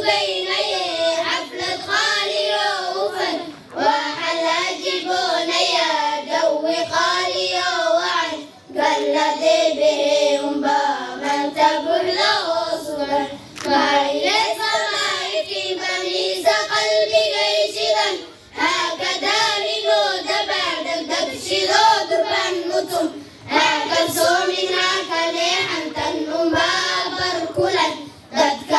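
Children singing together, in phrases of about five seconds, each ending in a short breath pause.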